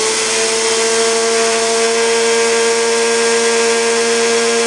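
Countertop food blender running at a steady speed, grinding crushed gold-bearing quartz ore to powder. Its motor makes a steady whine over a dense, even gritty noise.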